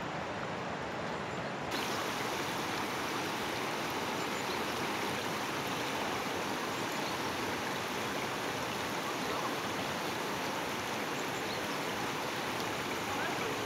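Fast-flowing river rushing steadily over rocks, getting slightly louder and brighter about two seconds in.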